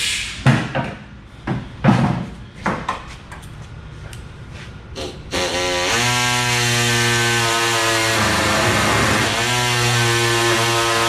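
Shop work noise: a few seconds of irregular knocks and scraping, then a power tool starts and runs with a steady whine. The whine dips briefly in the middle, as if loaded, then recovers.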